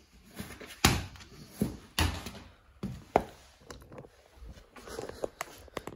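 Handling noise from a phone and its small tripod being picked up and carried: a scatter of sharp knocks and thumps, the loudest about a second in and at two seconds.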